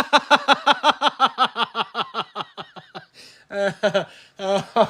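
A man laughing in disbelief: a long run of quick "ha" pulses that fades out over about three seconds, followed by a couple of shorter voiced bursts.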